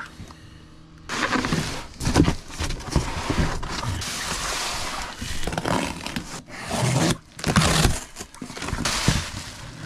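Cardboard shipping box and plastic packaging being handled and pulled open: dense rustling, crackling and scraping of cardboard and bubble wrap, starting about a second in.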